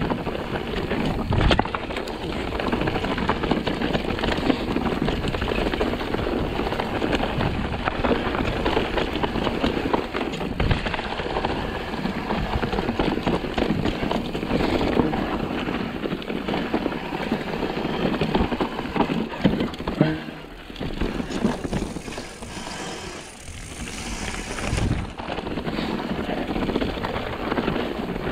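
Mountain bike descending a loose, rocky dirt trail: tyres crunching over stones and the bike rattling, with frequent sharp knocks as it hits rocks. The rattle eases off for a few seconds after about twenty seconds, then picks up again.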